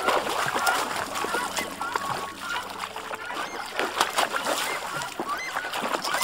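A hooked tararira (wolf fish) thrashing and splashing at the water's surface as it is played on the line, with irregular sharp splashes. Birds call over it in short repeated notes.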